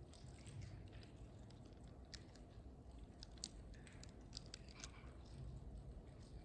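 Near silence with faint scattered crisp clicks and crackles of a communion wafer being chewed.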